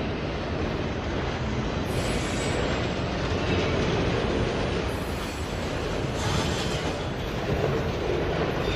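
Freight train of enclosed autorack cars rolling past close by: steady rumble and rattle of steel wheels on rail.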